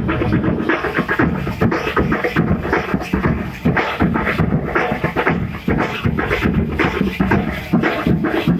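A street band of drummers playing a fast, driving rhythm on many drums together, a dense run of strokes with no break.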